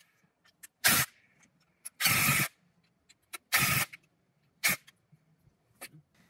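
Cordless impact driver driving a masonry anchor through a steel hinge plate into a rammed earth pillar, in five short bursts about a second apart. The later bursts are the briefest as the anchor draws the plate down tight.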